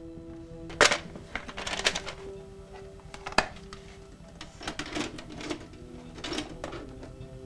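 Background music with held notes, over a series of sharp plastic clicks and clacks from a small case being handled and pushed into a machine, the loudest about a second in and at about three and a half seconds.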